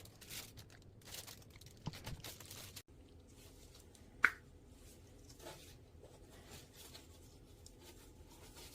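Packaging crinkling and tearing in short bursts of rustling, then one sharp clink about four seconds in, followed by a few faint ticks.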